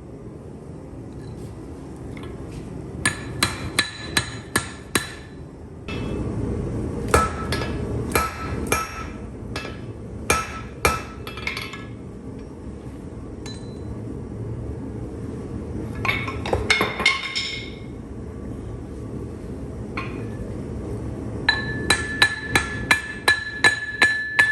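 Hammer striking rebar to bend it around a form, in four bursts of quick blows with the metal ringing after each. A steady low rumble runs underneath from about six seconds in.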